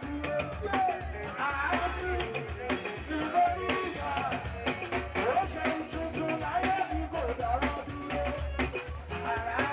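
Party music with singing over a steady drum beat.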